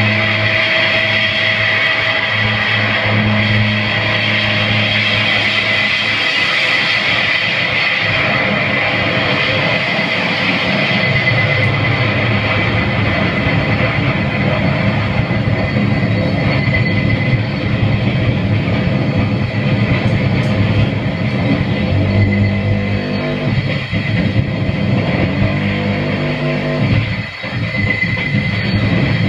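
Harsh noise music played live: a loud, dense wall of distorted noise with a bright hiss on top and a buzzing low drone that shifts in steps, briefly dipping near the end.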